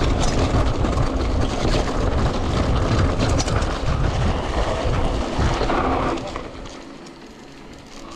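Mountain bike rolling fast downhill on a dirt trail covered in dry leaves: a dense, heavy rumble with scattered rattles and ticks from the tyres and bike. It dies away about six seconds in as the bike slows to a stop.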